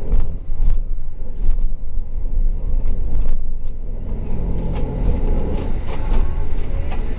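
City bus driving, heard from inside the cabin: a steady low engine and road rumble with scattered rattles and clicks from the bus's fittings.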